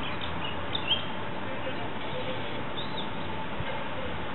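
Mallard ducklings peeping: a few short, high peeps in the first second and another near three seconds, over a steady background hiss.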